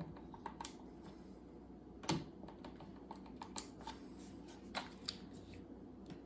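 Light, scattered clicks and taps of a small magnet on a magnetic screwdriver tip against a 3D-printed PLA part as the magnet is aligned into its hole, with one sharper click about two seconds in.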